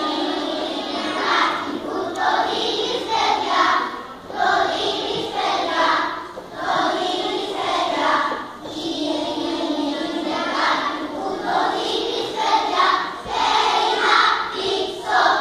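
Children's choir of first graders singing a traditional Greek song, in short phrases with brief dips between them.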